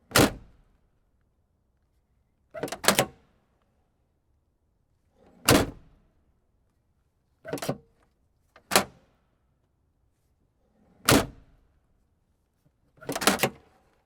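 Car trunk lid being shut again and again: seven separate thuds about two seconds apart. The second and last come as a quick double knock.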